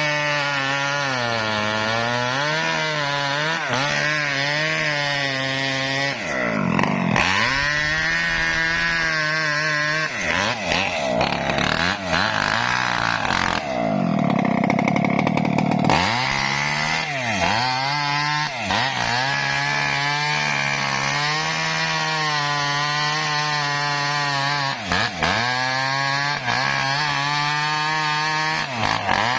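Chainsaw cutting mahogany wood. The engine runs steadily at high speed and its pitch drops several times as the chain bites into the wood, most deeply about halfway through, recovering each time.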